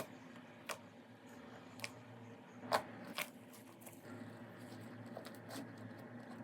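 Slime being squished and poked by hand: a few faint, sharp, sticky clicks and pops over a low steady hum.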